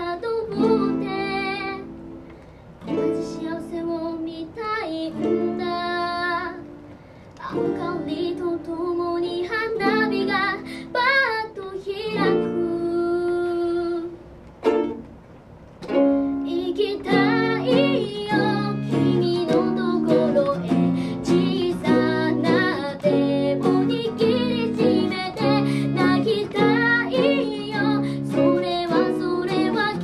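Live acoustic pop ballad on plucked strings: slow chords with short breaks, then steady rhythmic strumming from about halfway, with a female voice singing in places.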